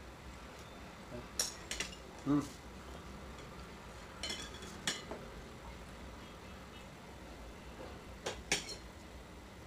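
Metal knives and forks clinking and scraping on ceramic plates while cutting pancakes, in scattered sharp clinks: a pair about a second and a half in, a cluster around four to five seconds, and two more near the end.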